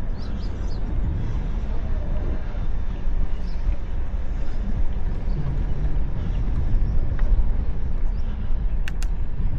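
Steady wind rumble over an action camera's microphone while cycling, with two sharp clicks close together near the end.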